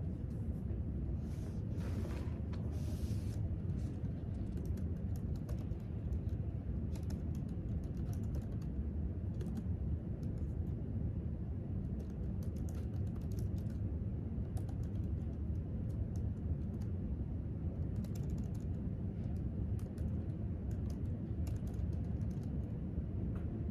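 Typing on a laptop keyboard: light, irregular key clicks over a steady low room hum. A soft rustle comes in the first few seconds, before the typing settles in.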